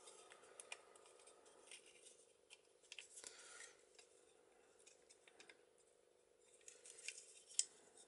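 Faint metallic clicks and light scraping from the brass lock case and lever follower of a sailboat cabin door lock as they are handled and turned by hand, with a sharper click near the end.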